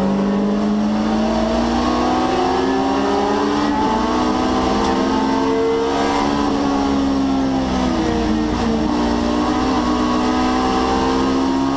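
BMW E30 M3 race car's S14 naturally aspirated four-cylinder engine under hard acceleration on track, heard from inside the cockpit. Its note climbs steadily, falls away for a couple of seconds past the middle, then climbs again near the end.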